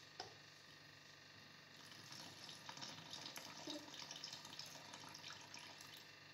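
Lemon juice poured from a glass jar into a plastic bottle: a faint trickle of liquid with small splashes, starting about two seconds in. A light click just after the start.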